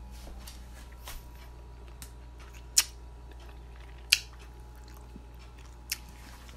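Scattered sharp clicks and taps of items being handled, two louder ones about three and four seconds in, over a faint steady hum.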